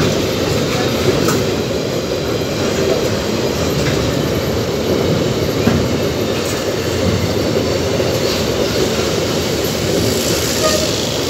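Empty steel gondola ore wagons rolling past close by: a steady rumble of wheels on rail with clicking over the rail joints and occasional faint wheel squeal.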